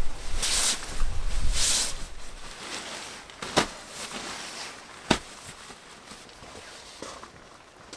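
Nylon shell of a down sleeping bag rustling and swishing as it is unrolled and spread out, loudest in the first two seconds. Two sharp knocks come about three and a half and five seconds in, followed by softer rustling.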